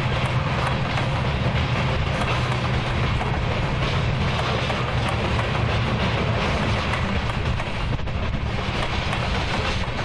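Freight train rolling past: a steady low rumble of wheels on rails, with faint scattered clicks.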